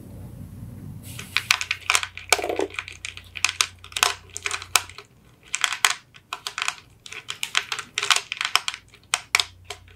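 Hard candy gumballs clicking and clacking against one another as fingers rummage through a pile of them, in quick irregular clusters of clicks that start about a second in.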